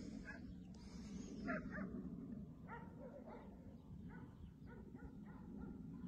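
Faint, distant dogs barking and yipping: a quick run of short calls, several a second, starting about two and a half seconds in.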